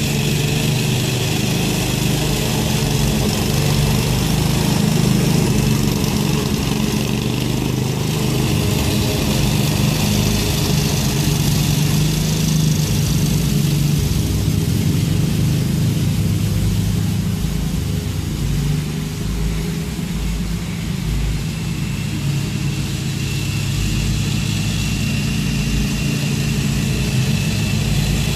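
Cub Cadet riding mower's small engine running steadily as it mows, a constant drone that fades a little about two-thirds of the way through.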